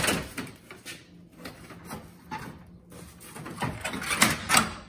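Plastic front grille of a Range Rover Sport being worked into its mounting clips by hand, giving plastic scrapes and clicks. There are a few at the start and a quick cluster of them near the end, the loudest part.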